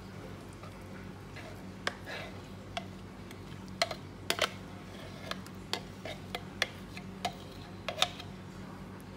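A metal spoon tapping and scraping against a plastic container while guacamole is scraped out into a ceramic dish. About a dozen sharp, irregular clicks over a steady low hum.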